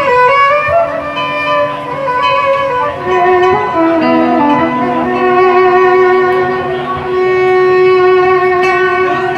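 Violin bowed in a slow melody of sustained notes, with one long held note in the second half.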